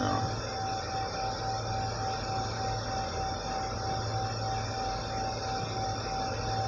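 BGA rework station running its reflow heating profile. Its blowers make a steady rushing sound with a constant high whine and a low hum, mid-profile as the solder balls under the PS5 APU begin to melt.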